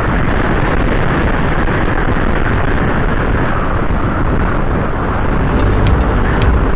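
Steady wind noise buffeting the microphone of a camera riding along on a moving bicycle, mixed with the rumble of tyres rolling on the paved lane. A few light ticks come near the end.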